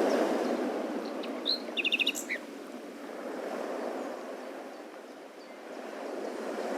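Small birds chirping: a brief cluster of short high chirps, including a quick run of four notes, then a single faint chirp near the end, over a steady background hiss.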